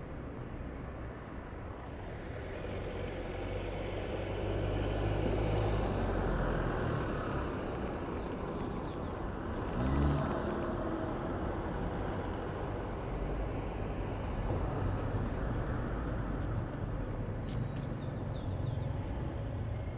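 City street traffic: cars passing on the road, the rumble swelling and fading, with one vehicle's engine briefly rising in pitch about halfway through.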